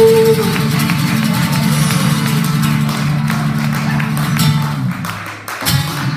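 Acoustic guitar strumming chords in a live song, over a sustained low chord. The low part drops away about five seconds in, and the music thins out and grows quieter.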